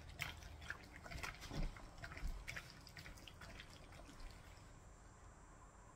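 Gloved hands squishing chicken pieces through a wet egg-and-cornstarch marinade in a glass bowl: faint, irregular squelches and small clicks that die away near the end.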